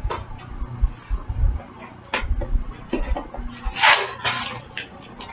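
Handling noise as items are taken out of a collector's box: a few light knocks and rustles, with a longer, louder rustle about four seconds in.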